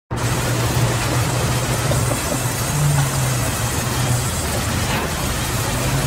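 Band sawmill running, its blade cutting lengthwise through a log: a steady, loud mechanical noise with a low hum underneath.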